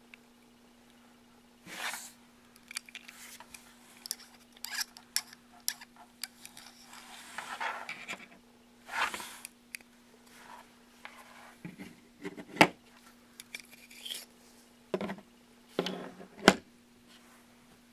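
Resin replica of a composite pistol handled and taken apart: hard plastic parts clicking, sliding and scraping against each other, with a few sharp clicks in the second half.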